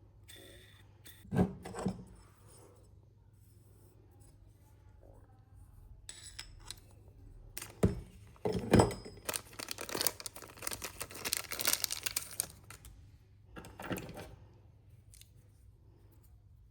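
Hand work on a bench: a few knocks as parts or tools are handled and set down, and about three seconds of crackly rustling or scraping in the middle. No power tool is running.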